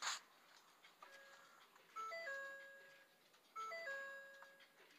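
Ford F-250 Super Duty instrument-cluster warning chime with the key on: a short run of stepped electronic tones, played twice about a second and a half apart, tied to the cluster's driver-door-ajar warning. A brief rustle or click right at the start is the loudest moment.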